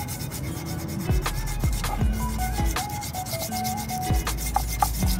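Sandpaper rubbed by hand over a metal pukis cake mould in quick back-and-forth strokes, scouring the pan to get it looking new and non-stick again.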